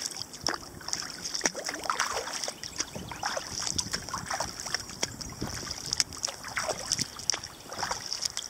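Double-bladed kayak paddle stroking through calm creek water from a sea kayak, alternating sides, with a swish and splash of water at each blade catch and exit, roughly one stroke a second.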